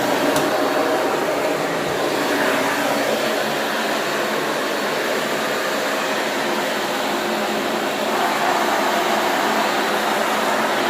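Shark vacuum cleaner running with a steady motor whir and suction noise, its tone shifting slightly a couple of times.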